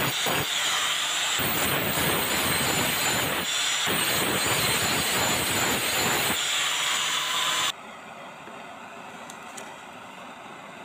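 Angle grinder with an abrasive disc grinding rust off a steel hoe blade, the low grinding sound surging and easing as the disc is pressed on and lifted. It cuts off abruptly about eight seconds in, leaving a faint steady hiss.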